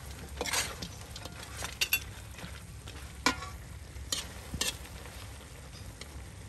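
Metal spoon stirring field frog stir-fry with roasted peanuts in a hot wok: several sharp scrapes and clinks against the pan over the food sizzling.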